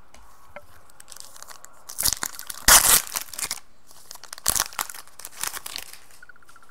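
A foil pack of 2015 Panini Contenders football cards being torn open by hand. The wrapper tears and crinkles in several bursts, loudest about three seconds in.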